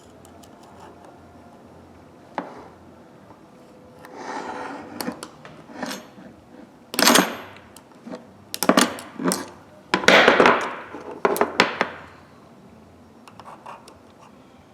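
Metal ratchet parts and hand tools clicking and clattering as a Husky 1/2-inch-drive ratchet is taken apart by hand. There are scattered sharp clicks and a few louder clattering scrapes in the second half.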